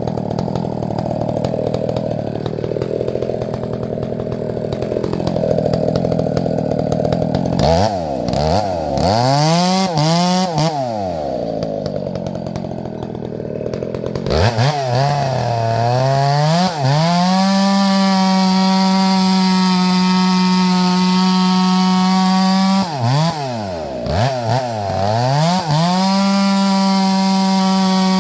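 Chainsaw with a square-ground chain bucking firewood, its engine holding a steady high pitch in the cut. Its engine speed swoops down and back up several times around a third of the way in and again near the end, as the saw is throttled and eased between cuts.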